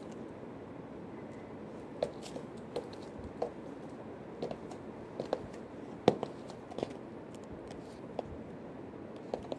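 Footsteps in white thong-style wedge sandals on a wooden floor: about a dozen irregular taps and soft slaps, the loudest about six seconds in.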